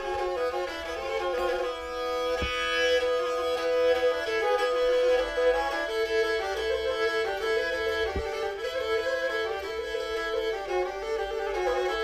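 Background music: a Black Sea kemençe, a small bowed fiddle, playing a melody. It starts with longer held notes, and from about halfway through the notes come in quick alternation.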